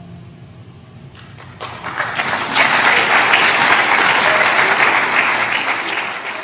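Concert audience applauding: after a short hush, a few scattered claps about a second in swell into full, dense applause.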